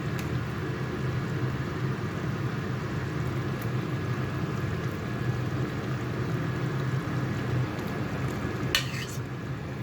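Pot of soup cooking on the stove: a steady low hum and hiss, with a brief clink of a utensil about nine seconds in.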